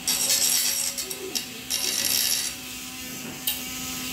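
Rattling, scraping and clicking of a 775 motor with a grinding-stone bit being handled and lifted out of its steel frame mount, over a steady hum.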